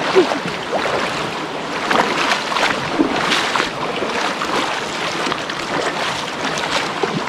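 Stream water rushing and splashing, a steady noise broken by irregular small splashes.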